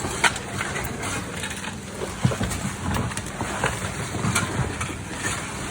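Roofers at work: irregular knocks and scraping of tools and roofing materials over a steady low outdoor rumble, with two louder knocks near the start and about two seconds in.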